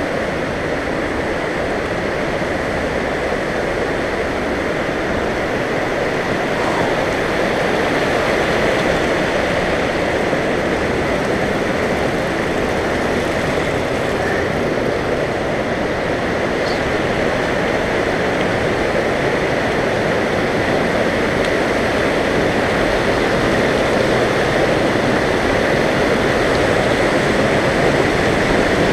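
Shallow mountain creek rushing over rocks and small cascades: a steady rush of water that grows slightly louder near the end.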